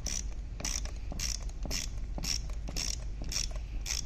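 Hand socket ratchet clicking in short bursts, about two a second, as it is swung back and forth on a nut holding the wire bracket of a truck starter motor.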